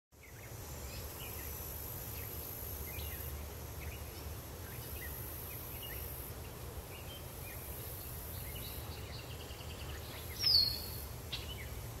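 Summer outdoor ambience of small birds chirping, over a steady high hiss and a low steady hum. Near the end one louder bird call falls in pitch.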